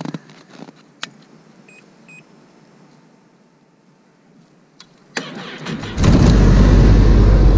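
A Ski-Doo Skandic SWT 900 ACE snowmobile's three-cylinder four-stroke engine is cranked over about five seconds in. It catches within a second and runs loud and steady: a cold start on a −16 °C morning. Before that there is a click and two short beeps.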